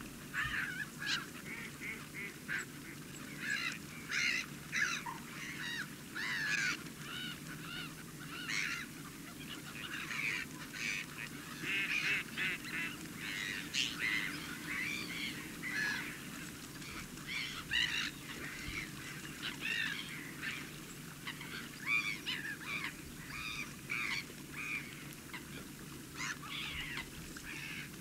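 A flock of wetland birds calling continuously: many short, overlapping, wavering calls, over a steady low background rumble.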